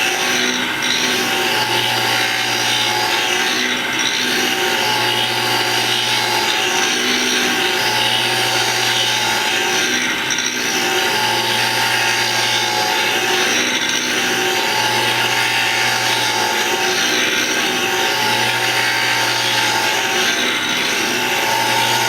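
ZS-26 cutter-sharpening machine running, its grinding wheel working a finger-joint cutter, with a steady hiss and a low hum that comes and goes about every two and a half seconds.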